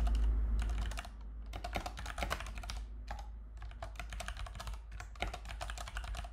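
Typing on a computer keyboard: quick, irregular key clicks, several a second, over a low steady hum.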